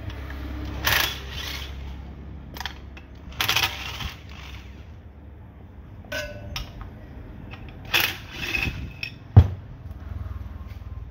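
Metal clinks, clatters and scrapes of screws and steel tools on a pump's metal casing and the workbench as the pump motor is being taken apart, with one sharp metal knock near the end, the loudest sound. A steady low hum runs underneath.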